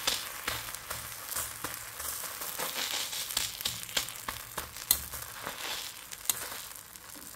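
A thin flatbread sizzling and crackling on a hot flat griddle, with many sharp pops over a steady hiss, while a steel spatula presses it down.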